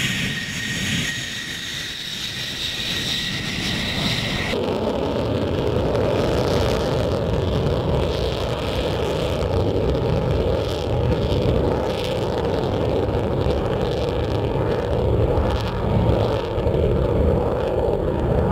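F-16 fighter jet engine: a steady high whine at low power for the first few seconds, then, from a sudden change about four and a half seconds in, the loud, steady rumble of a jet on its takeoff roll.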